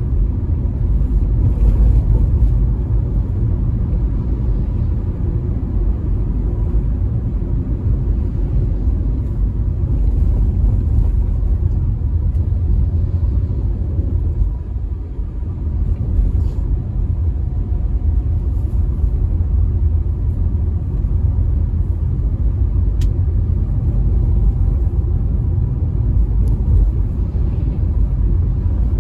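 Steady low rumble of a car's engine and tyre noise heard from inside the cabin while driving along a paved road, easing slightly for a moment about halfway through.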